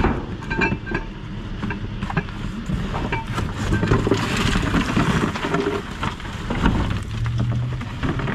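Cardboard boxes and loose junk being pushed and rummaged inside a metal dumpster: rustling and sliding cardboard with scattered knocks and clunks, and a steady low hum underneath.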